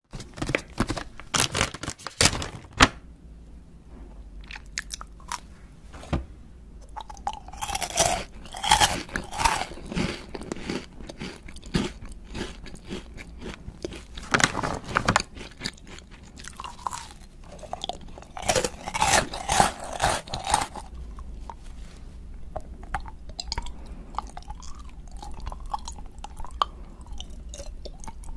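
Close-miked crunching and chewing of a crunchy chocolate snack (Sweet Choco Star), in loud crackly bursts with quieter chewing between, along with the crinkle of the plastic snack bag as it is handled.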